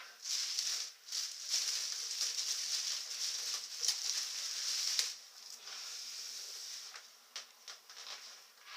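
Plastic bag around a PC case rustling and crinkling as it is pulled open, dense for about five seconds, then lighter handling with a few sharp clicks.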